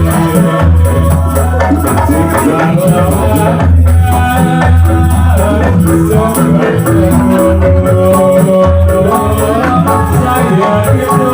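Ndolalak dance accompaniment music: a held melody over deep drum beats and jingling, rattling percussion, playing without a break.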